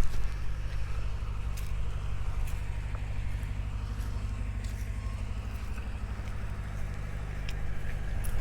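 A small engine running steadily with a low, even hum, with a few faint sharp clicks over it.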